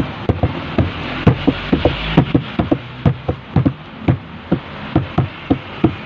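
A quick, uneven run of short low knocks or taps, about four a second.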